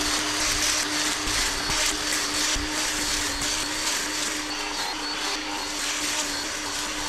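Battery-powered brush cutter with a metal grass-cutting blade running at a steady whine while it cuts through tall, thick grass, the blade's strikes on the stems making a rough, uneven hiss.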